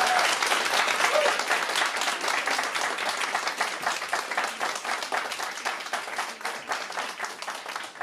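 Audience applauding at the end of a live song, the clapping fading out steadily.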